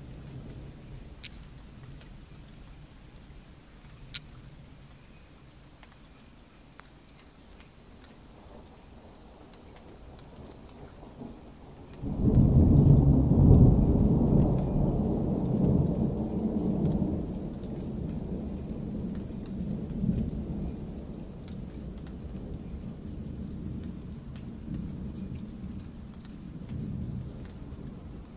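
Thunder: a low rumble fading out, then about twelve seconds in a sudden loud clap that rolls into a long rumble, dying away slowly with a few smaller swells.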